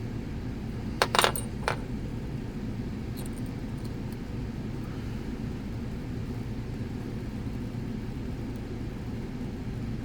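Three quick metallic clicks about a second in, from a dimple flag pick and turner working the pins of a dimple lock, over a steady low rumble.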